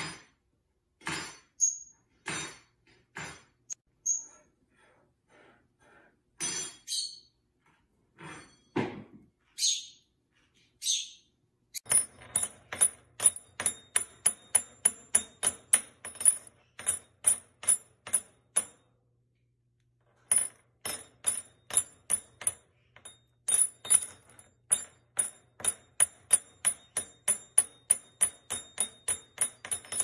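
A green-cheeked conure striking a small metal object against a hard surface. First come scattered single clinks and taps with a few short high chirps. About halfway through, a steady run of ringing metallic clinks begins at about three strikes a second, broken once by a short pause.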